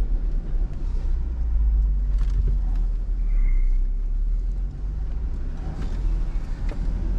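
Jeep driving slowly over a rough dirt forest road: a steady low rumble from the engine and tyres, with a few light knocks from the bumps.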